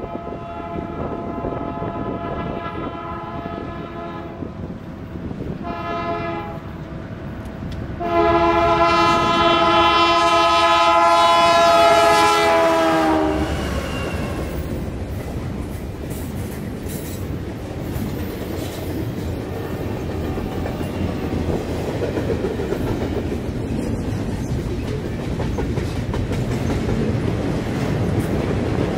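BNSF diesel locomotive horn sounding a chord in three blasts, long, short, long, as the train closes in; the last and loudest blast drops in pitch as the locomotive passes. Then the wheels of the double-stack intermodal well cars run past with a steady rumble and clickety-clack.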